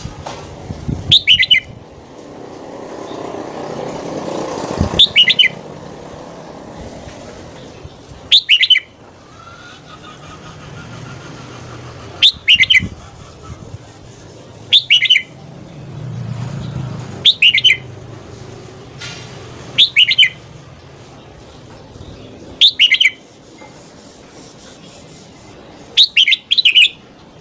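Red-whiskered bulbul singing short, loud song phrases about every three seconds, nine in all. Under them a low steady background rumble swells and fades twice.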